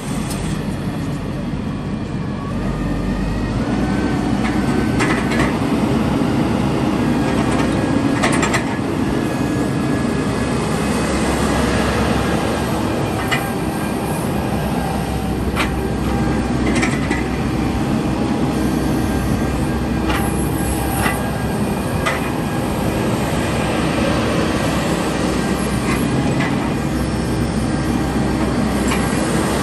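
Wolf WE75L 8-ton wheeled excavator's diesel engine running steadily while its hydraulics slew the upper structure and work the boom and bucket. The engine picks up about three seconds in, and scattered sharp clicks and knocks sound over it.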